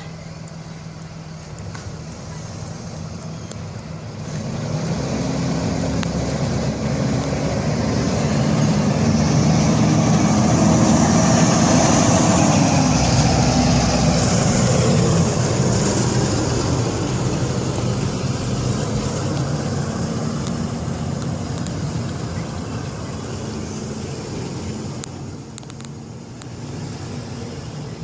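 Blue Bird Vision school bus engine idling, then pulling away and driving past: it grows louder to a peak about halfway through, then fades gradually as the bus moves off.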